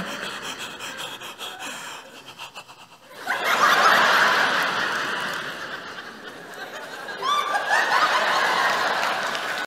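Audience laughing, a dense crowd laugh that fades a little, then swells up loudly again about three seconds in.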